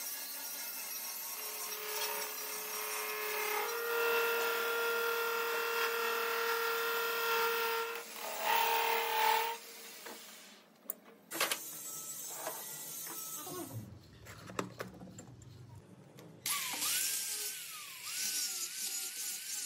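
Metal lathe turning a metal gear blank, the cutting tool shaving the spinning workpiece with a steady whine for about the first ten seconds. After a quieter stretch of knocks and clicks, a handheld angle grinder runs against a metal gear near the end, its pitch wavering.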